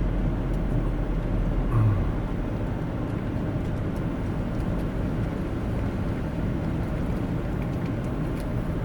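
A car's engine and cabin noise make a steady low rumble, with one brief low sound about two seconds in.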